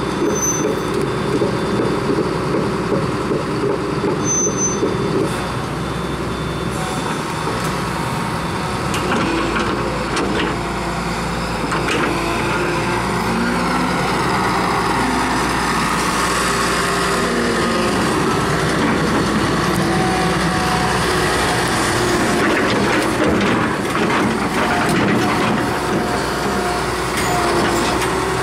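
Hyundai crawler excavator's diesel engine running steadily, with bursts of metallic clanks from the machine around the middle and again near the end.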